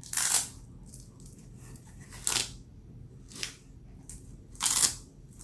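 Four short rustles of shoe packaging being handled, the first and last the loudest.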